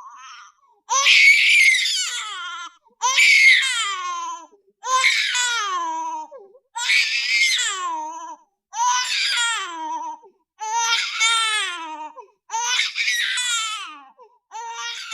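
Baby crying in a string of about eight wails, each a second or two long and falling in pitch, with short silent gaps between them.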